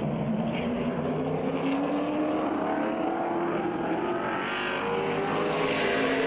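Late model stock car V8 engines running on the track, their pitch rising slowly as the cars speed up, with a growing rush of noise in the second half.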